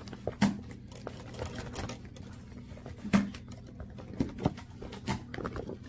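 Clear plastic bag organizer crinkling and rustling as a handbag is slid into it, with scattered small taps and clicks and two louder knocks, about half a second in and about three seconds in.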